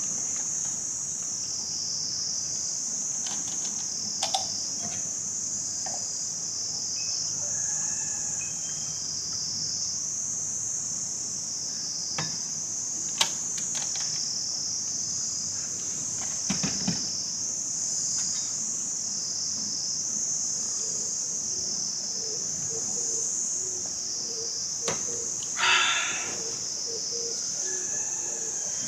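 Chorus of insects making a steady high-pitched drone that slowly swells and eases, with scattered light clicks and knocks and a short call near the end.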